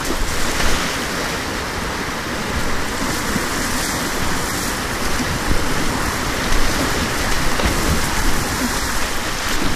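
Whitewater river rapids rushing steadily and loudly, heard close at water level from the kayak.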